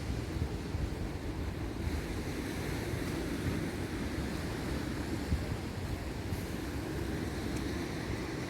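Black Sea surf washing onto the beach, with wind buffeting the microphone in a steady low rumble.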